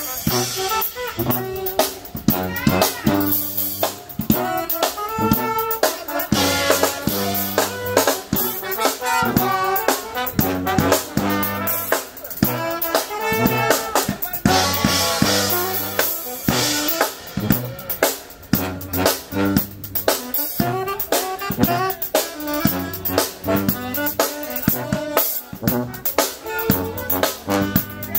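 Live brass band playing: a sousaphone bass line under trumpet, saxophone and trombone, driven by a drum kit with snare and rimshot hits keeping a steady beat.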